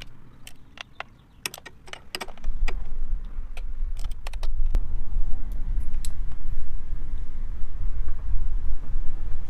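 A quick run of sharp metallic clicks and clinks from hand tools working the screws of a Harley-Davidson's derby cover, then, from about two and a half seconds in, a steady low rumble that takes over.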